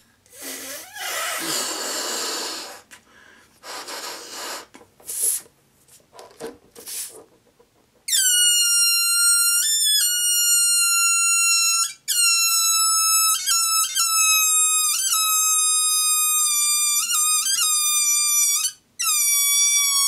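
Air blown into a rubber balloon in several breathy puffs, then, about eight seconds in, a loud high-pitched squeal as air is let out through the balloon's stretched neck. The squeal breaks off and starts again many times as the neck is pinched and released.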